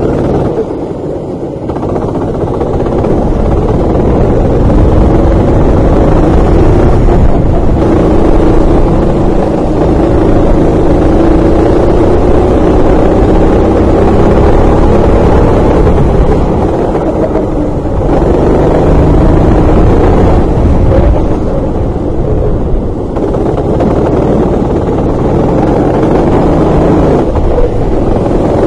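Racing kart engine running hard, heard from a camera mounted on the kart. Its pitch climbs and falls several times as the kart speeds up along the straights and slows for corners.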